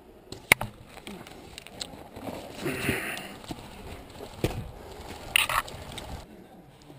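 A player's footsteps and gear rustling as he gets up and moves over snowy, frozen ground, with a sharp click about half a second in and a dull thump a little past the middle.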